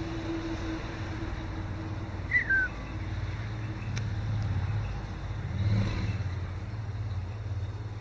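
Steady low rumble of road traffic, swelling briefly around six seconds in as a vehicle passes. About two seconds in, a bird gives a single short call that falls in pitch.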